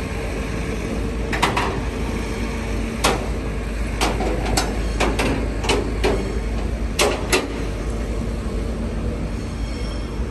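Tilt-tray tow truck loading a car onto its tray: about ten sharp metallic clanks and knocks, some in quick pairs, over a steady low rumble.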